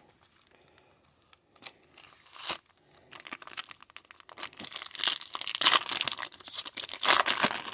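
A foil trading-card pack wrapper being torn open and crinkled. It starts quietly with a few scattered crackles, then about three seconds in turns into dense, rapid crackling.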